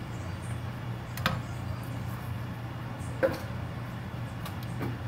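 A wooden spatula knocks sharply against a pan of simmering mung bean stew twice while stirring, about a second in and again about three seconds in, with a few fainter taps near the end. A steady low hum runs underneath.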